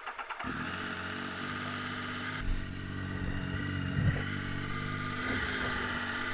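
Motorcycle engine starting, catching about half a second in, then idling steadily, with a couple of brief bumps.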